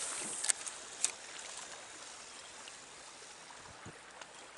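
Steady running water of a trout stream, with two short sharp clicks or splashes about half a second and a second in.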